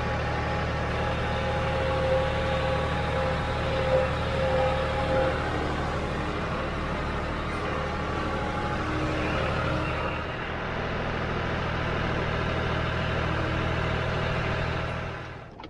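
John Deere utility tractor's diesel engine running steadily, heard from the operator's seat; its note shifts slightly about ten seconds in, and it drops away just before the end.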